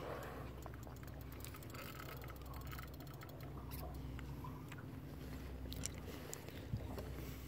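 Faint low steady rumble of wind and water around a small aluminium fishing boat on the river, with scattered light clicks and taps.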